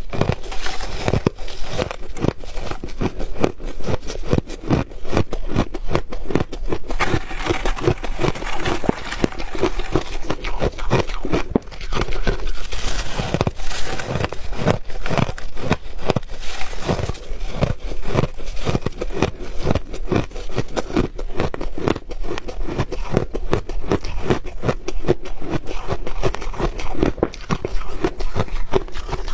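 Crunchy ice being bitten and chewed close to the microphone, a rapid run of sharp crunches, several a second.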